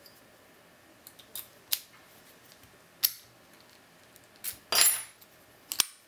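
Sharp metallic clicks and clinks from a padlock and its brass key being handled and the key set down on a wooden table, a few scattered at first and loudest about five seconds in, with a brief high ring.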